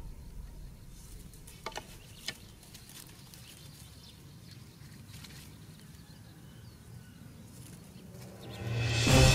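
Background music fades out, leaving a quiet outdoor background with a few short, soft clicks about two seconds in. The music fades back in near the end.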